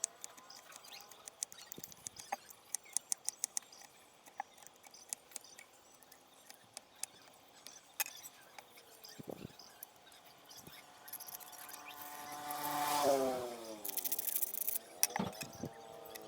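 Scattered faint clicks and taps, then near the end a motor vehicle engine passing by, its pitch rising and then falling as it comes and goes.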